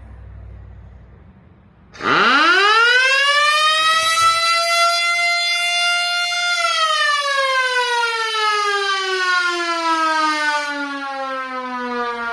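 Air raid siren starting about two seconds in. It winds up quickly to one steady high wailing tone, holds it for about four seconds, then winds down slowly with a long falling pitch.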